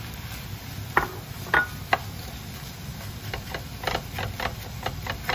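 A spatula knocking and scraping against a nonstick frying pan while stirring cauliflower rice into a kimchi and pork belly stir-fry. There are three separate knocks, then a quicker run of taps in the second half.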